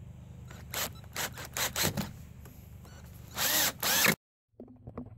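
Cordless drill/driver sinking large screws through a metal hinge into a wooden frame. It runs in a string of short trigger bursts, then two longer, louder runs, and cuts off abruptly about four seconds in.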